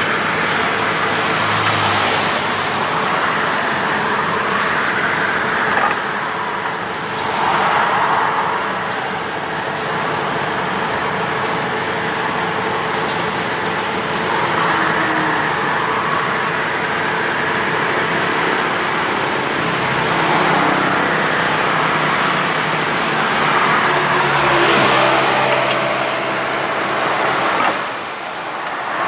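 Road traffic: steady vehicle noise, swelling several times as cars pass.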